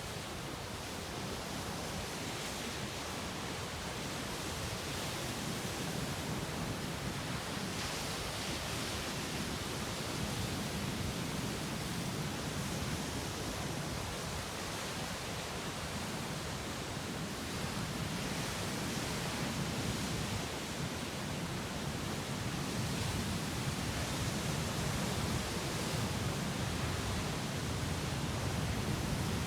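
Sea surf washing in and breaking against rocks: a steady rushing noise that swells and eases slowly.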